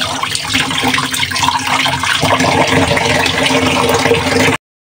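Tap water running and splashing into a steel bowl of rice in a stainless steel sink while the rice is swished by hand to wash it. The sound stops abruptly near the end.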